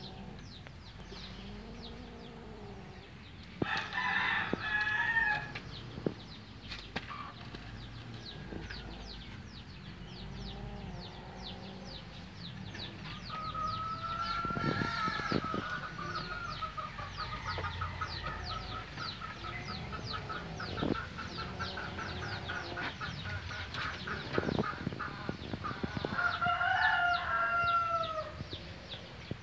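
Chickens calling: a rooster crows about four seconds in and again near the end, with a long trilling call in the middle, over a steady rapid high chirping.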